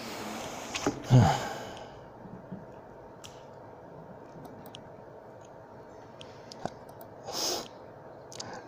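A man sighs: a long breath out that trails into a short falling voiced groan about a second in. After that there is quiet room tone with a few faint clicks, and another audible breath out near the end.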